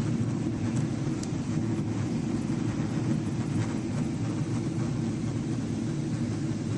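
Steady low rumble inside the cabin of a Boeing 777-300 airliner on approach: engine and airflow noise.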